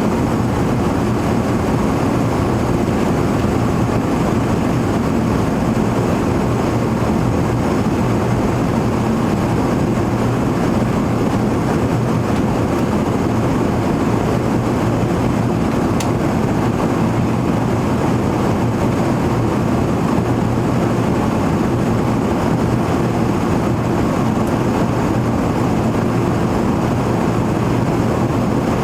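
Steady cabin drone of an Airbus A380 airliner in flight: engine and airflow noise heard from inside the passenger cabin, a dull rushing sound with a low steady hum under it.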